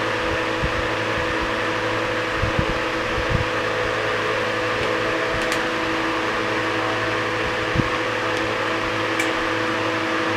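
Late-1940s Victor Scatterbreeze 12-inch single-speed table fan (model FS12X) running steadily: a motor hum with several steady tones under the rush of air from the blade.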